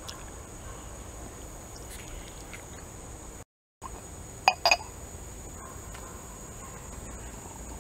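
Two quick clinks of a porcelain lid coming off a ceramic cup about halfway through, each ringing briefly, over a steady faint high-pitched whine.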